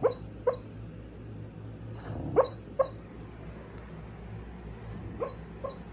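English Cream Golden Retriever barking and yipping in her sleep while dreaming: six short woofs in three pairs, at the start, about two and a half seconds in, and near the end.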